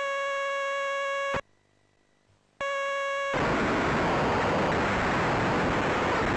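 Commodore 64 data cassette playing back a program tape. A steady high-pitched leader tone breaks off about a second and a half in and returns about a second later, then gives way to a loud, hissing stream of data about three seconds in.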